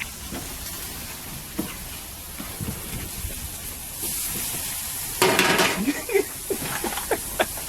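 Pork chops sizzling as they cook, a steady hiss with a few light clicks. About five seconds in there is a louder rush of noise lasting under a second.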